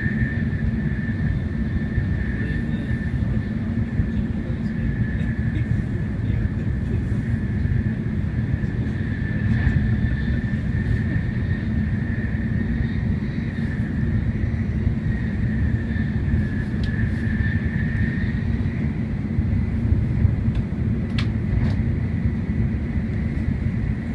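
Steady rumble of a Hikari Shinkansen heard from inside the passenger car while it runs along the line, with a faint high steady tone over it that fades about three quarters of the way through. A couple of faint clicks come near the end.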